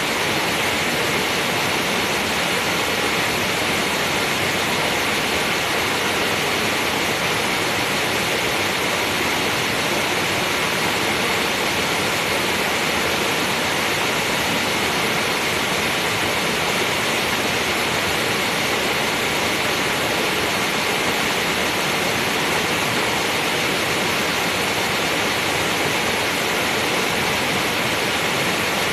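Steady rushing noise of flowing water, even and unchanging throughout.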